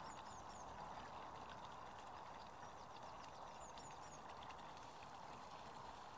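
Quiet outdoor ambience: a steady faint hiss, with a small bird's faint high chirps, three quick ones near the start and three more about two-thirds of the way through.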